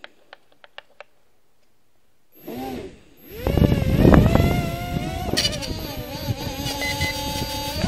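Husban X4 toy quadcopter's small motors and propellers: a short blip about two and a half seconds in, then spinning up to a loud buzzing whine about a second later, the pitch wavering with the throttle as it lifts off. A few faint clicks come before it.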